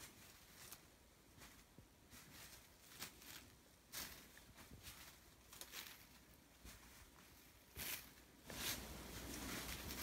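Near silence: room tone with faint, scattered light clicks and taps, a few a little stronger, and a soft steady hiss that comes up near the end.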